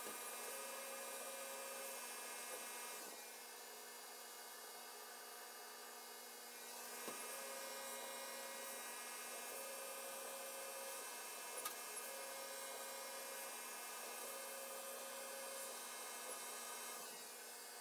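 Laser cutter running as it cuts birch plywood: a steady hiss with several steady hums, and short tones of about a second each that come and go as the head moves, plus a few faint clicks.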